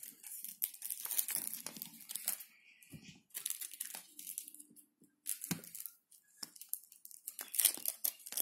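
Plastic packaging crinkling and tearing as a bag is handled and opened by hand, in irregular bursts of rustling.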